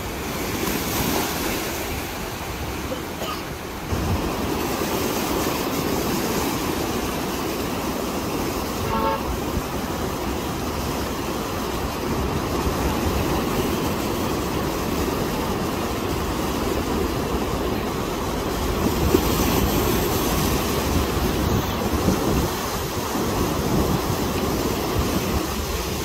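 Ocean waves breaking and washing in continuously, with a brief faint tone about nine seconds in.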